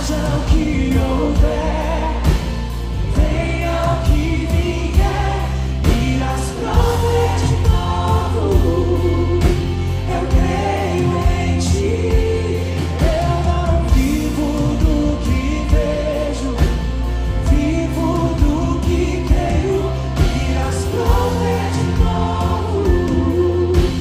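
Live worship band: a male lead vocalist singing into a microphone with backing singers, over electric guitar, heavy bass and a steady beat.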